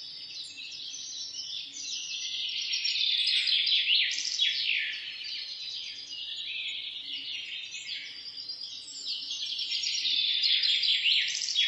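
Chorus of small birds chirping, many quick overlapping downward-sweeping chirps, swelling louder and softer in waves.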